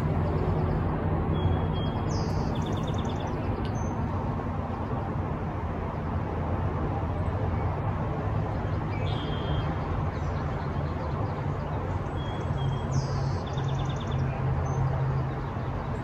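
Birds calling outdoors: a few clear single notes and two short quick trills, one a few seconds in and one near the end, over a steady low hum and rushing background noise.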